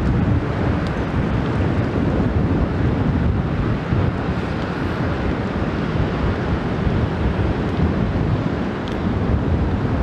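Strong wind buffeting the microphone: a loud, gusting low rumble.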